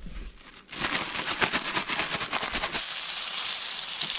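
Seasoned pieces of mangrove jack frying in a hot pan. A dense crackling sizzle starts about a second in and settles into a steadier hiss near the end.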